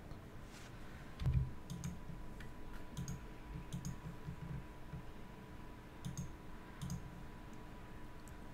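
Computer mouse clicking: scattered single clicks at irregular intervals, with a dull low thump about a second in, over a faint steady high-pitched whine.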